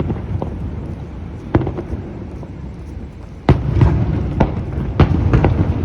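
Aerial firework shells bursting, each a sharp boom with a low rumbling tail. A few bursts come in the first two seconds, then it goes quieter, then a quicker run of loud bursts starts about three and a half seconds in.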